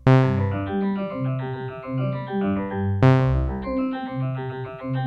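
Synthesizer note played twice, about three seconds apart, through the Eventide H90 harmonizer's Prism Shift algorithm. The algorithm detects each note and turns it into a rapid arpeggio of pitch-shifted notes stepping up and down.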